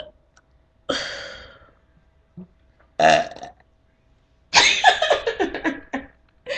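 A person burping loudly three times. The first burp fades out and the second is short. The third is longer and broken up.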